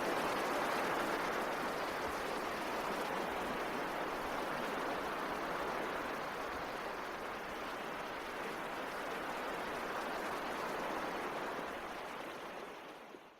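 A steady rushing noise with no tune or voice in it, slowly fading and then cutting off abruptly near the end.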